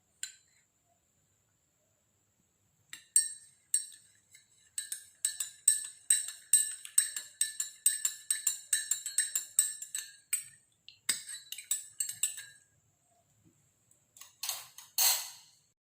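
A spoon stirring honey into a glass of drink, clinking against the glass about three times a second with a ringing note, for several seconds. Near the end there is a short scrape.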